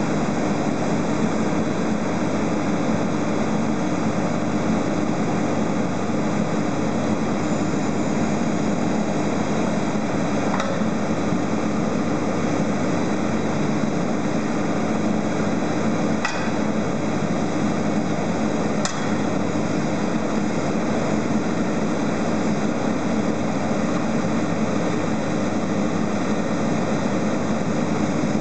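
Tractor engine running steadily, driving the hydraulics of a KESLA 203 T timber loader crane as it slews and folds in, with three brief sharp knocks from the crane along the way.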